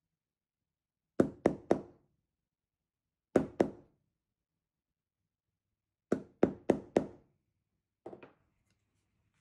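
Hard wooden knocks of a wooden rod striking a small block of zelkova wood, in quick groups: three, then two, then four, then two fainter ones near the end.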